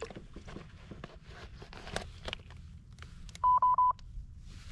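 An electronic device beeping: a quick run of four short beeps at one high pitch, about three and a half seconds in, over faint small knocks.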